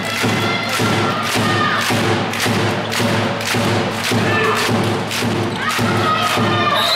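Steady, evenly spaced thumping, about two to three beats a second, with a few tones sliding up and down in pitch over it.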